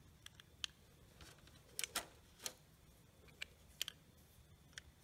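About a dozen light, irregular clicks and taps as the parts of a Predator generator's disassembled carburetor are handled: the metal body, float and jet knock against each other and against fingers. The loudest clicks come about two seconds in.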